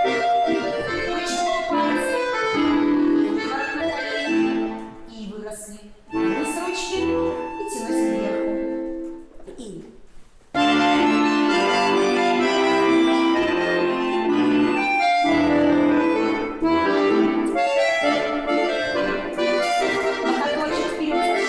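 An accordion playing a folk dance tune. It thins out to a quiet passage about a quarter of the way in, then comes back in full about halfway through.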